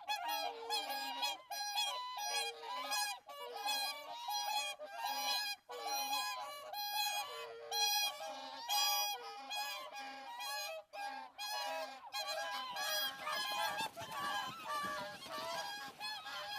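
Many birds honking, short nasal calls repeating rapidly and overlapping one another without a break.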